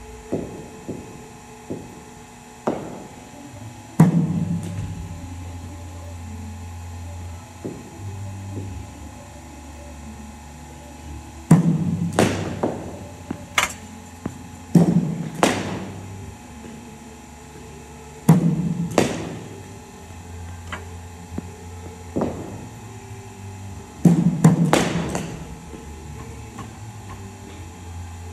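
Kashmir willow cricket bat striking cricket balls: sharp cracks that come in pairs or threes a fraction of a second apart, about five times, with pauses of several seconds between them.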